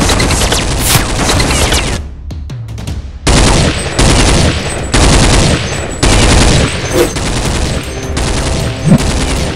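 Bursts of rapid machine-gun fire, added as a sound effect over toy-blaster play. Each burst is about a second long and starts abruptly, following a brief lull about two seconds in.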